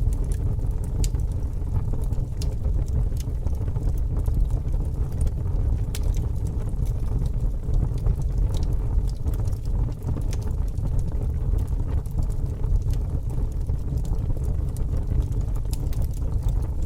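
Fire burning with a steady low rumble and occasional sharp crackles and pops.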